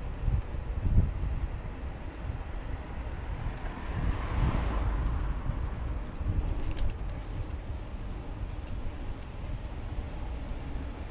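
Wind rumble and road noise on a bicycle-mounted action camera riding a city street, with a car passing about halfway through, its sound swelling and fading over a second or two.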